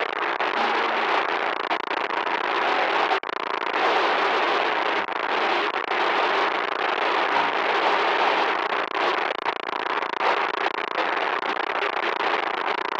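Loud harsh static noise, a continuous crackling hiss with brief dropouts about three seconds in and again near the end.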